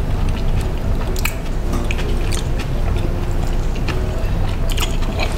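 Sushi being chewed, with scattered small clicks and mouth smacks over a steady background hum.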